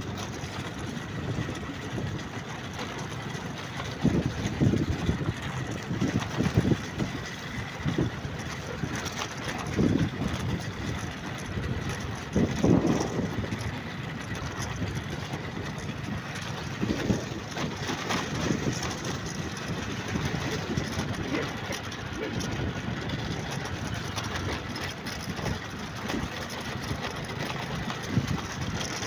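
A vehicle engine running steadily while under way, with irregular low thumps and rushes now and then.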